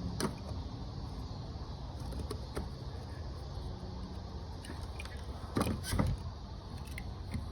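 A few light clicks and knocks from fuel pump assembly parts being handled and fitted into the tank, over a steady low rumble; the loudest knocks come about five and a half to six seconds in.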